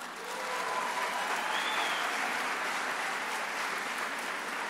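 Audience applauding steadily, with a voice or two calling out faintly amid the clapping.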